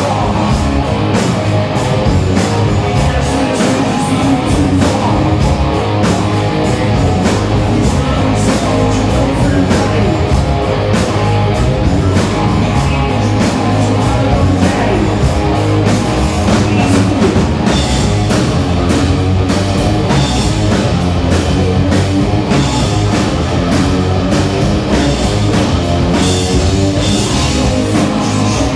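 Rock music played by a band: drum kit and guitar going with a steady beat, and little or no singing.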